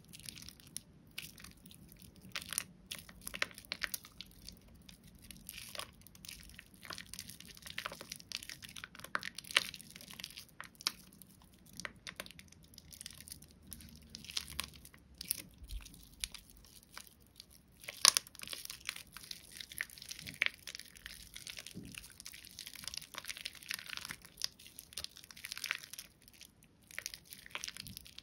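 Soaked, mushy Bio Mio bio-soap being lathered into thick foam: irregular wet crackling with many small pops, and one louder snap about 18 seconds in.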